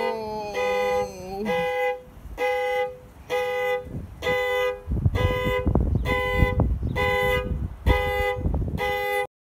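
A Toyota car's two-tone horn honking over and over in short, even blasts, a little faster than one a second: the panic alarm set off from the key fob. A low rumble runs under the second half, and the honking cuts off suddenly near the end.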